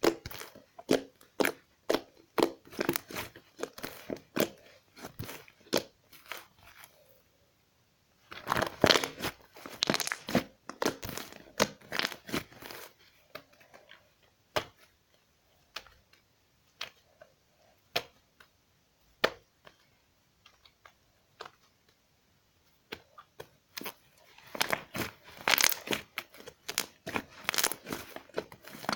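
Slime being squeezed and worked by hand, making irregular sharp crackles and pops. They come in dense flurries about a third of the way in and again near the end, with scattered single clicks between.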